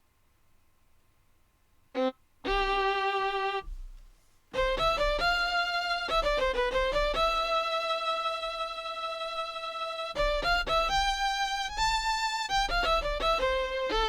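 Sampled fiddle (a Ketron SD90 fiddle sample loaded as a Kontakt instrument) played from a keyboard. After about two seconds of quiet come a short note and a held note, then a quick run of notes, one long sustained note, and more quick phrases.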